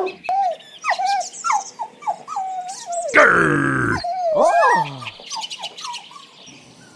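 Cartoon sound-effect dog: a quick run of short yaps and yips, each sliding in pitch. About three seconds in comes a loud comic sound lasting about a second, its tone dropping steeply, then a few more falling yelps.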